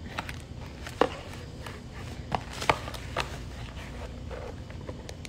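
Scissors snipping through a cardboard toy box, with irregular clicks and crinkles of the packaging; the sharpest snip comes about a second in, with a cluster of others a little later.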